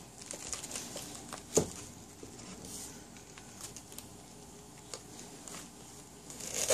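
Kitchen knife being forced down through a dense, tightly packed head of green cabbage: faint crackles and ticks as the crisp leaves give, with one sharper crack about a second and a half in. The head is so tight that the blade barely goes through.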